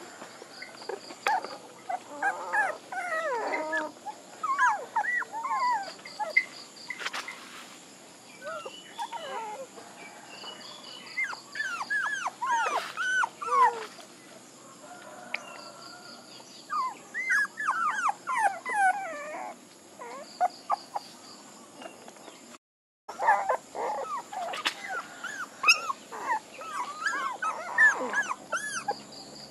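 Young puppies whimpering and yelping in bursts of short, high calls that rise and fall in pitch, with pauses between the bursts.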